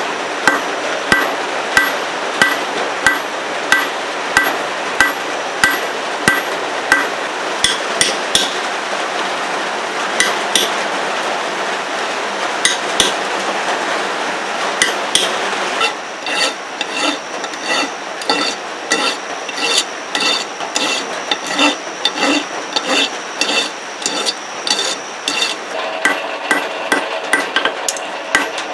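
Hand hammer striking hot 1/2-inch round steel stock on an anvil, each blow ringing: steady blows about two a second at first, then irregular, and from about halfway faster, lighter blows with a higher ring. A steady hiss runs underneath.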